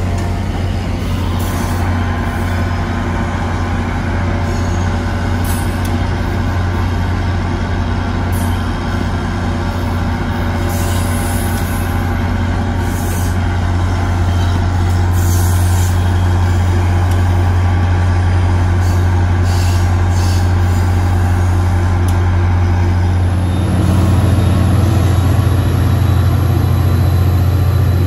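Diesel locomotive engine running with a steady low drone, with several short hisses mixed in. A few seconds before the end the engine note steps up and gets a little louder.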